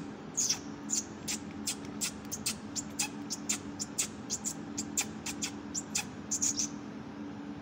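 Rapid series of short, high-pitched squeaks, a few each second, stopping shortly before the end, over a steady low machinery hum.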